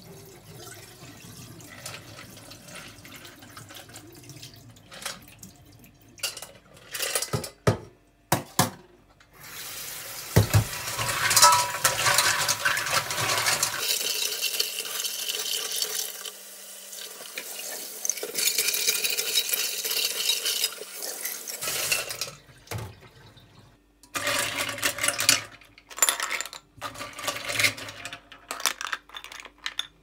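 Live clams being rinsed in a stainless-steel pot at a kitchen sink. First the soaking water is poured off, with shells clinking against the steel. From about ten seconds in the tap runs onto them for around twelve seconds, and near the end the shells clatter again as they are handled.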